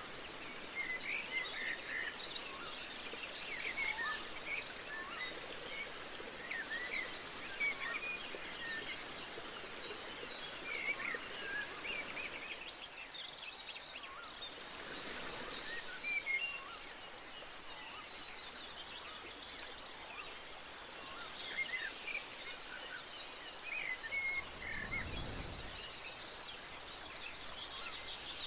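Birds chirping and calling in short, scattered calls over a steady high hiss of outdoor ambience, with a brief low rumble near the end.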